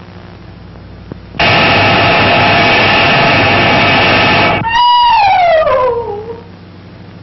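Dental drill running loudly and steadily for about three seconds, then cut off abruptly. A long wail follows, sliding steadily down in pitch for about a second and a half.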